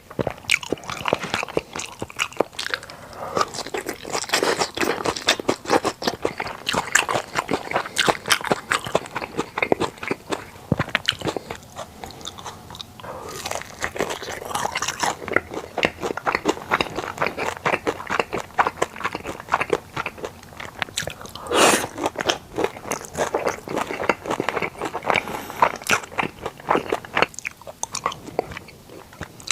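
Close-miked chewing and biting as a person eats sushi, with many small crunching and wet clicking bites, steady without pause.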